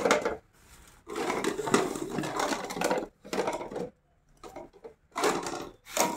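Hard plastic PVC pipe fittings clattering and rattling as they are handled and packed. The sound comes in several separate bursts, the longest lasting about two seconds.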